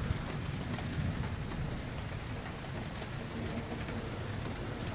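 Rain falling steadily in a thunderstorm, with a low rumble of thunder that fades over the first couple of seconds.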